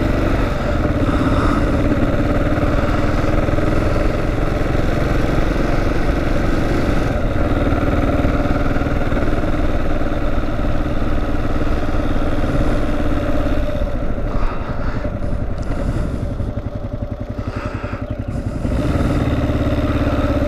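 2009 Kawasaki KLR650's single-cylinder engine running steadily while the motorcycle rides along. About fourteen seconds in the engine drops quieter for around four seconds, then picks back up near the end.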